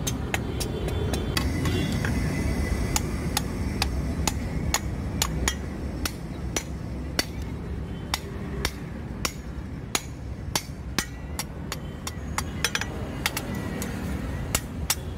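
Hand hammer blows on steel at a blacksmith's anvil, a steady run of sharp strikes about two a second, each with a brief metallic ring, over a continuous low rumble.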